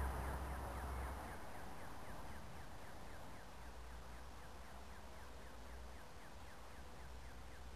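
Faint outdoor background: a passing vehicle fades out in the first second over a steady low rumble, with a faint, even series of quick falling chirps, about four a second.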